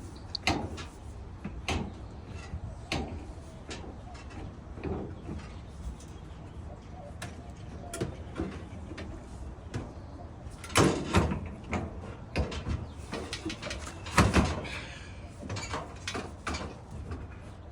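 Irregular clunks and clicks of dryer sheet-metal parts being handled and fitted back together, with louder bunches of knocks about eleven and fourteen seconds in.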